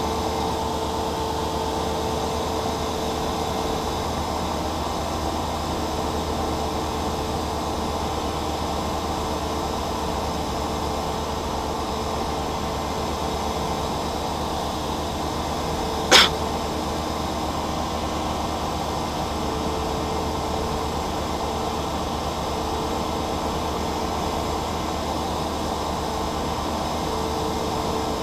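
Cessna 172's piston engine and propeller droning steadily as heard inside the cockpit, with a single sharp click about halfway through.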